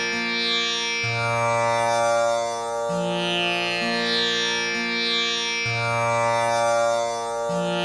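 Tanpura drone: its strings plucked one after another in a repeating cycle of about four and a half seconds, each note ringing on with a buzzing halo of overtones, and the lowest string sounding longest.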